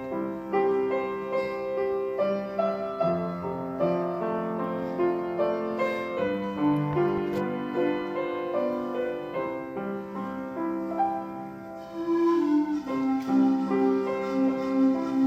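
Piano accompaniment playing chords and melody at the opening of a hymn, growing louder about twelve seconds in.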